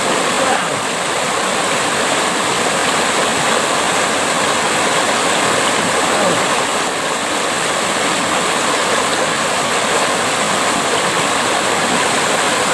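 Running water, a steady even rush like a stream or small waterfall.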